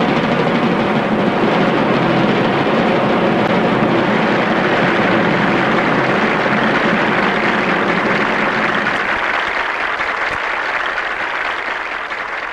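A steady rumbling noise, then from about nine seconds in a crowd applauding, fading out near the end.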